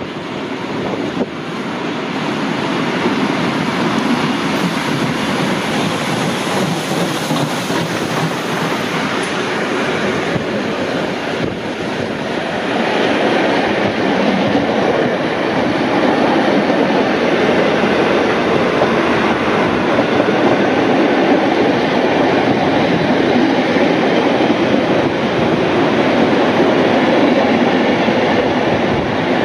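A steam-hauled heritage passenger train overtaking on the parallel track, its carriages rushing past close alongside with wheels running on the rails, mixed with the running noise of the train being ridden. The noise builds over the first couple of seconds and grows louder again about halfway through, as the carriages pass.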